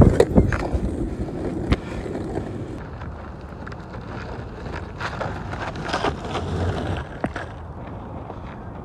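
Longboard wheels rolling over rough asphalt: a loud rumble at first that settles into a quieter, steady rumble, broken by a few sharp clacks.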